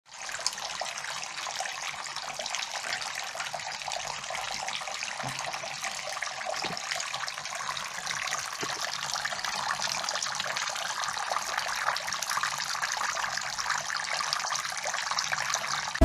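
Small homemade desktop waterfall fountain running: thin streams of water falling steadily onto pebbles in its basin, a continuous trickling and splashing.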